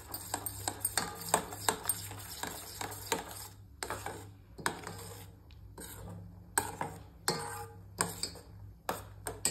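Steel spoon stirring curdled milk cooking with sugar in a steel bowl, clinking and scraping against the sides in quick irregular taps.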